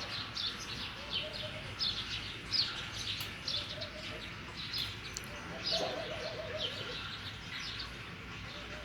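Small birds chirping busily, with short high falling calls several times a second, and doves cooing a few times, most clearly about six seconds in.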